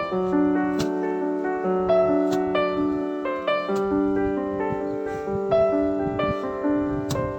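Background music: a soft piano-like keyboard melody over held lower notes.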